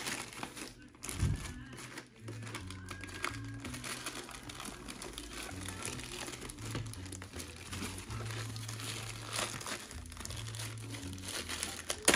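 Plastic poly mailer bag crinkling as it is torn open and pulled apart by hand, with many small irregular rustles.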